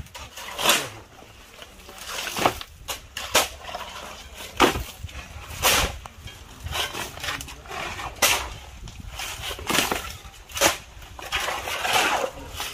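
Steel shovels scraping through and turning a wet concrete mix on bare ground, with short wet scrapes and slaps roughly once a second, unevenly spaced.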